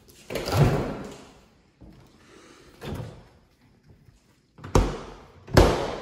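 Two-door mini fridge's doors being pulled open and pushed shut: a thud about half a second in, a softer knock near three seconds, then two sharp slams less than a second apart near the end.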